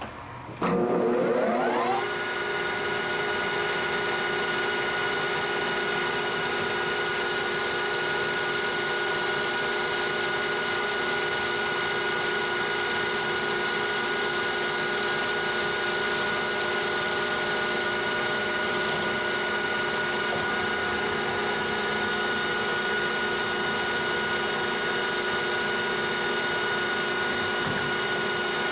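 Metal lathe starting up, its motor whining up to speed over about a second and a half, then running steadily.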